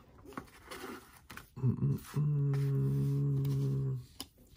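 A man hums one low, steady note for about two seconds, after a couple of short vocal sounds. Faint clicks of trading cards being handled come before it.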